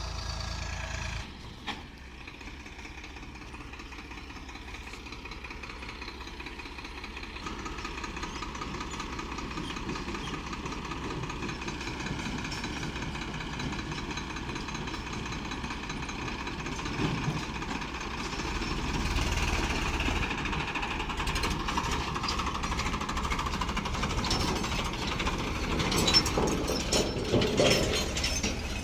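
Heavy diesel engine running. It grows louder about a quarter of the way in and again past the middle, with a few sharp metallic knocks near the end.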